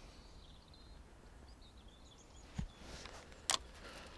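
Fishing rod and reel being handled as the rod is lifted from its rest: a dull knock about two and a half seconds in, then a sharp click about a second later. Faint bird chirps sound earlier.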